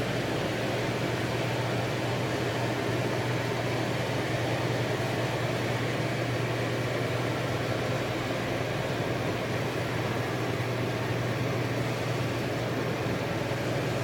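Moored saury fishing boat's engine running steadily: a constant low hum over a broad, even rumble.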